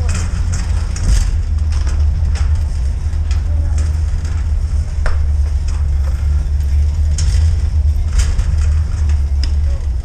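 Shopping cart rolling over a concrete floor: a continuous low rumble from its wheels, with scattered clicks and rattles.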